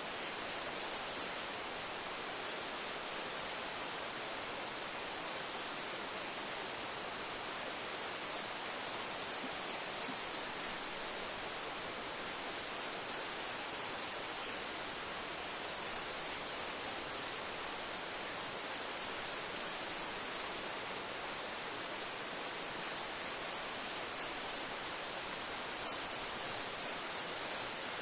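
Forest insect chorus: a very high, rapidly pulsed chirping that comes in bursts of one to two seconds every couple of seconds, over a steady fast trill and an even background hiss.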